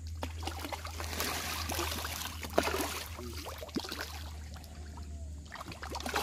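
Fish splashing and churning at the surface of a pond as they take floating feed pellets, with a steady low hum underneath.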